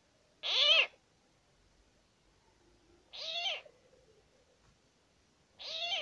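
Greater coucal giving three short, harsh calls about two and a half seconds apart, each a hoarse cry that rises and falls in pitch.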